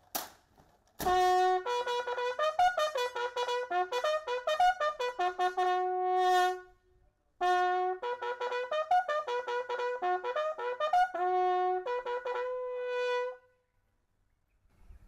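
Military bugle call played in two fast phrases of short, tongued notes, each phrase closing on a held note, with a brief pause between them.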